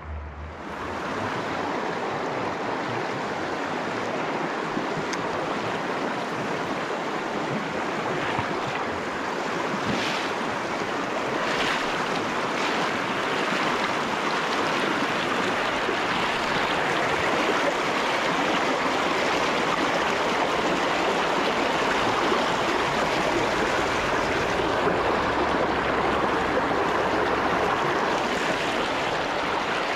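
Shallow freestone stream rushing over rocks through a riffle close by, a steady full rush of white water. It comes up abruptly about half a second in.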